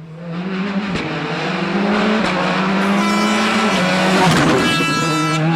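A WRC rally car approaching at speed, its engine growing louder over the first two seconds and staying loud as it passes close. The engine note drops briefly a few times, and a high whine joins it in the second half.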